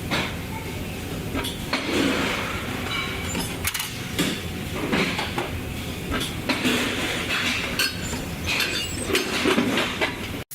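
Irregular clinking and clattering over a steady background noise, like hand work with tools or hard objects in a workshop.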